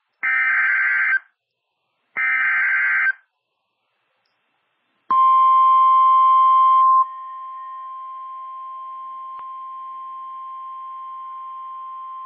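NOAA Weather Radio alert signal: two buzzy SAME digital header bursts about a second long, one after the other, then about five seconds in the steady 1050 Hz warning alarm tone, louder for its first two seconds and then holding. The tone is the signal that a warning, here a severe thunderstorm warning, is about to be broadcast.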